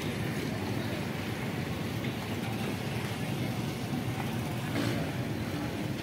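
Steady low rumble of street traffic, with a motor vehicle's engine running close by.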